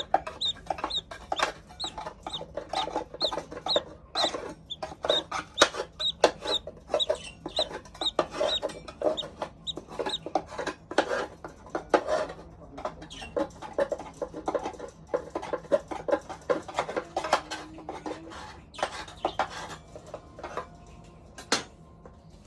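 Baby budgerigar chirping: a quick run of short repeated calls, about two a second, thinning out to a few single calls near the end.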